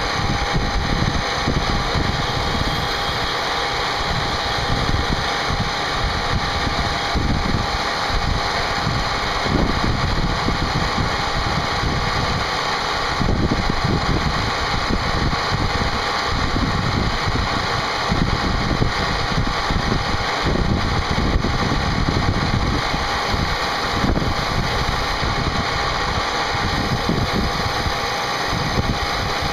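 CNC milling machine running a part program, its spindle and cutter machining the part: a steady whine over rough, continuous cutting noise.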